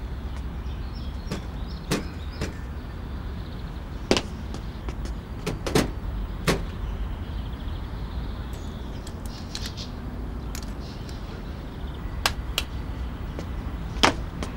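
A handful of sharp, irregular knocks and clacks over a steady low rumble; the loudest knocks come about four seconds in and near the end.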